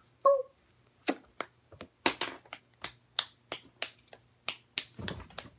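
Finger snapping: a run of sharp, uneven snaps, about two to three a second.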